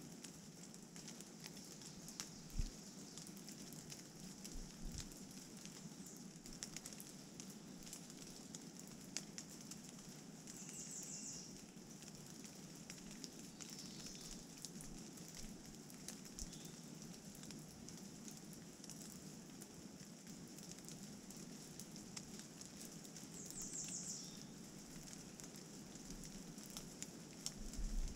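Rain falling and dripping on the forest floor: a faint steady hiss with scattered sharp ticks of drops. Twice a small bird gives a short, very high trill, about eleven seconds in and again near twenty-four seconds.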